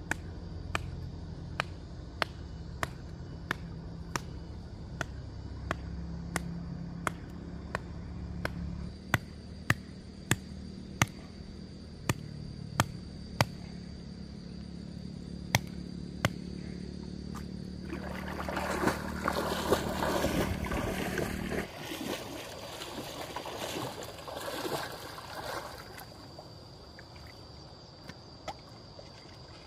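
Water splashing and sloshing, loudest for several seconds past the middle, over a low steady hum that cuts off suddenly about two-thirds of the way through. Sharp clicks repeat about one and a half times a second throughout.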